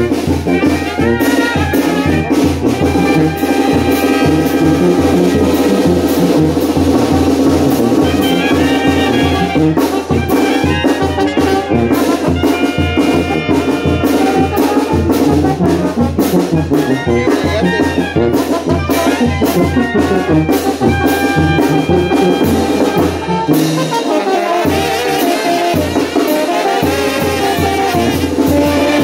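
Brass band music: brass instruments playing a melody over a steady beat and bass.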